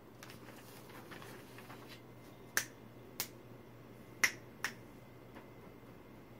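Four finger snaps, sharp and dry, in two pairs about two and a half and four and a half seconds in, after faint paper rustling near the start.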